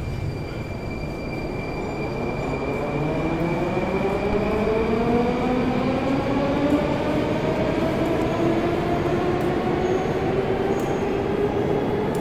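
Metro train pulling out of the platform, its traction motors whining in a rising pitch as it accelerates over a steady rail rumble.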